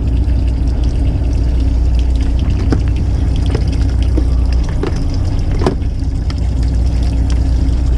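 Fishing boat's engine running with a steady low drone, water sloshing along the hull, and a few light clicks.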